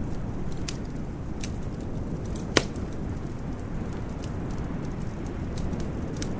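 Wood fire crackling in a fireplace: scattered small crackles and one loud pop about two and a half seconds in, over a steady low rumble.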